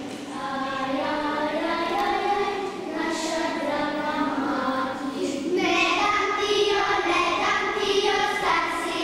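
A group of young children singing together, growing louder about halfway through.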